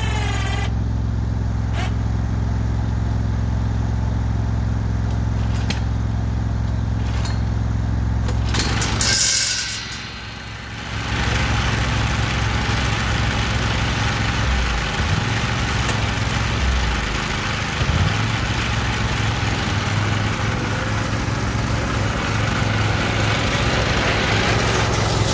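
Riding lawn mower engine running with a steady hum. About nine seconds in there is a brief hissy burst and the sound drops for a second or two, then the engine carries on with a louder hiss over it.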